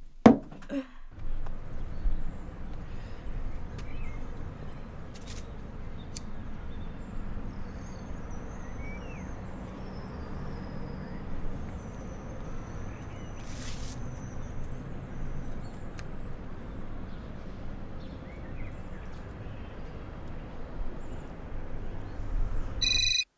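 Outdoor ambience: a steady low rumble with a few faint bird chirps and a brief hiss about halfway through. Just before the end, a telephone starts ringing with an electronic ring.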